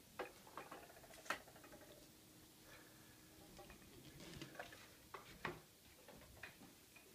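Near silence with a few faint, scattered clicks and ticks over a faint steady hum.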